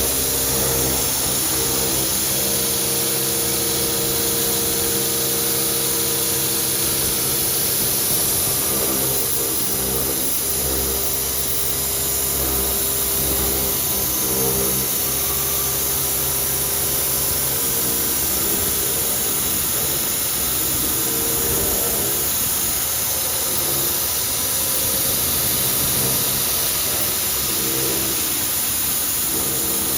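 CNC milling machine rough-machining a workpiece: a steady machine run with a constant hiss and several steady tones that shift now and then as the cut goes on.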